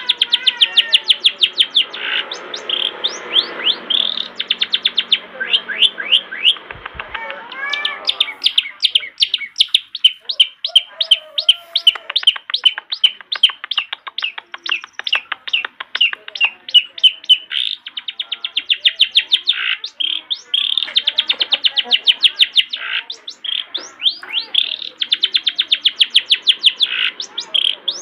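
Long-tailed shrike (cendet) singing a fast, continuous song of rapidly repeated high chips, broken now and then by warbled, gliding phrases. This is the energetic 'gacor' song used as a tutor recording for young shrikes.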